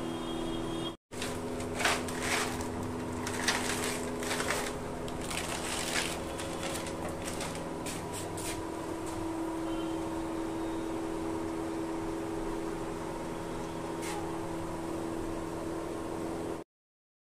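3 HP Elgi air compressor running with a steady hum, with several clicks and knocks in the first few seconds.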